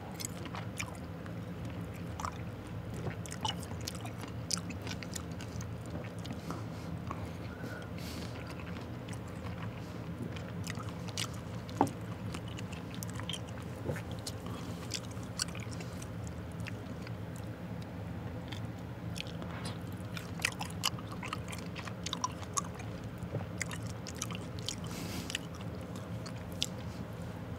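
A man chewing raw lemon pieces close to the microphone: many small wet clicks and crunches from his mouth, with a single sharper click about twelve seconds in, over a steady low hum.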